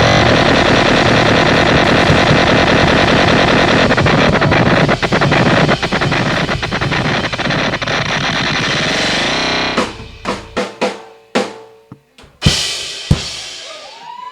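Live rock band playing a loud passage driven by the drum kit, then breaking off about ten seconds in into a drum-roll ending: several separate drum and cymbal hits, the last of them ringing out.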